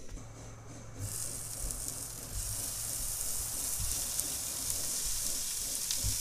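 Chunks of flat iron steak sizzling in hot oil in a frying pan on a propane camp stove. The sizzle starts suddenly about a second in and gets louder as more pieces are dropped into the pan.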